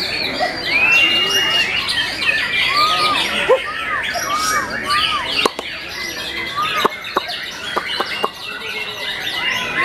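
Several white-rumped shamas (murai batu) singing over one another in contest song: a clear rising whistle about a second in, then a run of arched whistled notes, dense chirping throughout, and a few sharp clicks in the second half.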